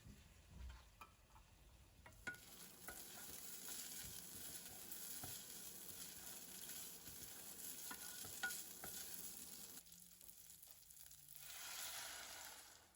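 Food sizzling in a hot pan, with a few light utensil clicks. The sizzle drops away briefly near the end, then comes back and cuts off suddenly.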